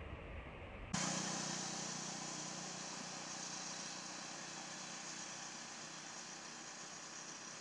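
Steady outdoor background hiss with no clear calls in it. It changes suddenly about a second in, from a low rumble to a brighter, wider hiss that slowly fades.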